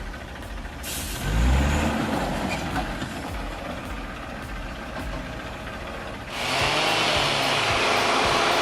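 An engine revs up and back down about a second in, then a loud, steady rushing noise starts about six seconds in and runs on.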